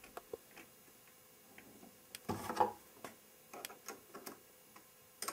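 Faint, scattered metallic clicks and taps as a wire is fitted back onto a storage-battery terminal by hand, with a short, louder rustle about halfway through.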